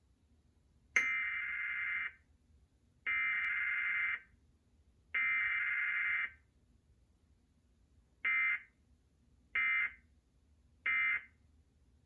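Emergency Alert System SAME data tones played through a TV's speaker: three screeching digital bursts of about a second each (the header), then three short bursts (the end-of-message code). This is the sequence of a Required Weekly Test from the cable provider.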